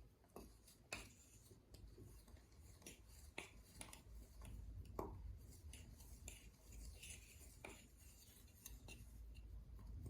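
Faint scraping and clicking of a stick stirring thick slime in a cup, in irregular strokes.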